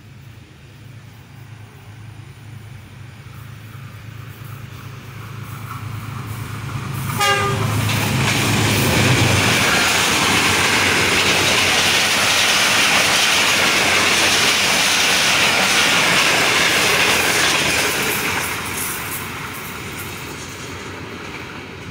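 GEU-20 (GE U20C) diesel-electric locomotive approaching at speed with a low engine drone growing louder, and a short horn note about seven seconds in. Then the loud rush and clatter of the locomotive and coaches passing at top speed, fading in the last few seconds as the train draws away.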